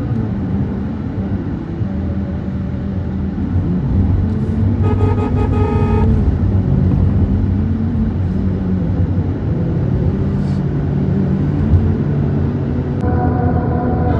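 Car driving on a highway, heard from inside the cabin: steady engine and road noise, with the engine's pitch wavering a little. A high pitched tone sounds for about a second around five seconds in, and another pitched sound comes in near the end.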